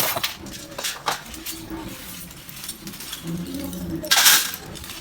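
Hard pieces of roasted multani mitti (Fuller's earth clay) crunching and clicking: a string of short sharp cracks, with one loud crunch about four seconds in.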